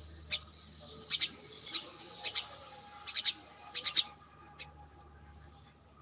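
Small birds chirping: quick, sharp high-pitched chirps in clusters of two or three, thinning out after about four seconds.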